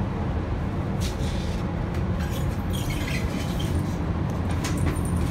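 Steady low rumble inside an Amtrak passenger car pulling into a station, with bags rustling and scraping against the metal luggage rack as they are pulled out, about a second in, again around two to three seconds in, and near the end.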